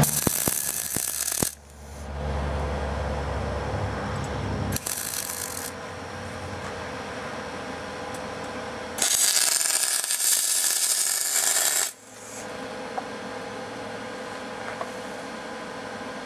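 Wire-feed (MIG) welder arc crackling in three bursts while welding the bent runner pipes of a homemade intake manifold in place. There is a burst of about a second and a half at the start, a short one about five seconds in, and the longest and loudest, about three seconds, past the middle.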